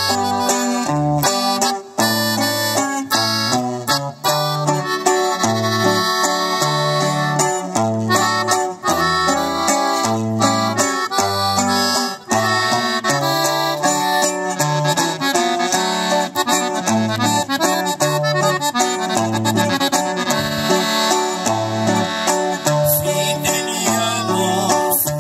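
Live norteño-style instrumental: an accordion carries the melody over a strummed guitar and a bass line stepping back and forth between low notes, with no singing.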